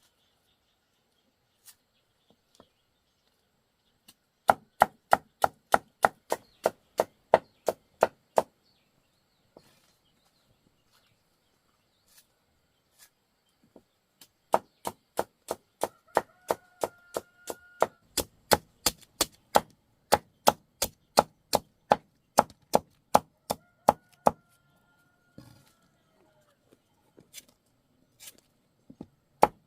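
Knife chopping on a wooden board in quick, evenly spaced strokes, about three a second, in two long runs with pauses between them.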